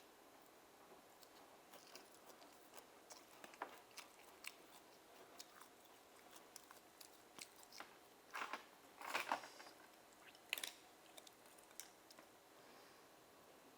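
Quiet wet chewing and mouth sounds of someone eating steamed oysters: scattered small clicks, with a few louder bursts a little past the middle.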